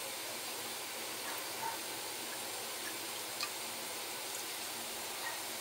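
Steady hiss of a wok steamer, water boiling under the rack beneath a plated steamed fish, with a few faint ticks.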